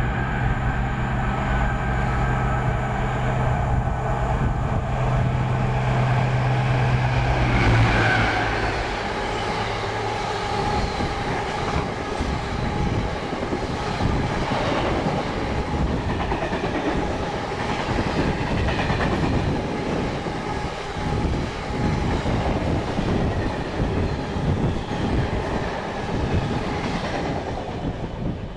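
Class 60 diesel-electric locomotive approaching and passing with a steady low engine drone, loudest about eight seconds in. A long train of bogie tank wagons follows, rolling by with rhythmic wheel clatter that eases off near the end as the train recedes.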